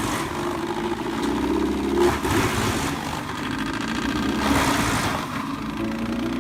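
Bandit 1890 XP whole-tree wood chipper running under load while chipping a tree. Its engine note stays steady, and the rough noise of the chipping swells in surges a few times.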